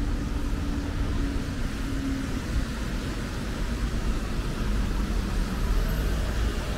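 Rainy city street ambience: a steady low rumble of road traffic under an even hiss of rain, with a faint engine hum in the first couple of seconds.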